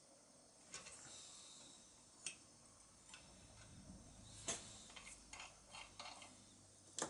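Faint, scattered clicks and ticks of small metal lighter parts and long pliers knocking together while they are worked in a bench vise. A handful of short, sharp clicks over quiet room tone, the loudest about halfway through and near the end.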